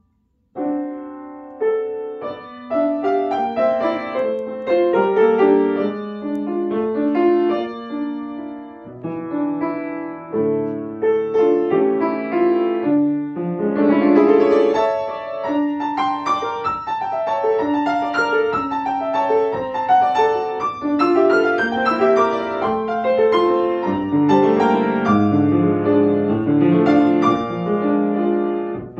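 Grand piano played solo, a flowing passage of melody over chords. It pauses briefly at the start and then plays on without a break.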